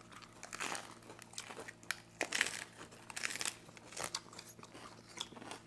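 Crunching and chewing of a fresh lettuce-leaf wrap filled with beef, in irregular crisp bursts with small mouth clicks.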